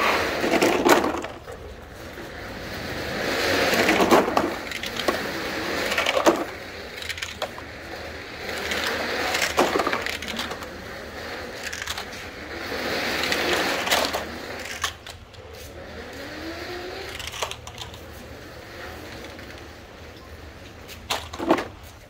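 Plastic toy trucks being rolled over dirt and set down: swells of gritty rolling noise a few seconds apart, with sharp plastic clacks between them.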